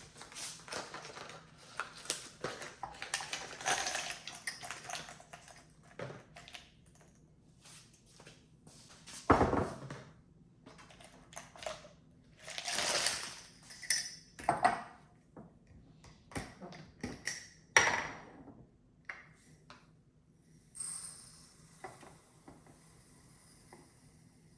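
Unboxing handling noise: items being picked up and set down on a hard surface, with irregular clicks, knocks and rustles and a heavy thump about nine seconds in.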